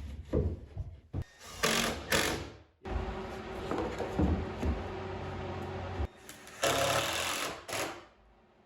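A power tool running in bursts: two short loud runs, a longer steadier run, then another loud burst before it stops near the end.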